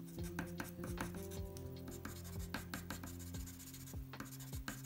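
Charcoal pencil scratching on paper in quick, short, repeated strokes, a few a second, as when flicking in lashes, over background music.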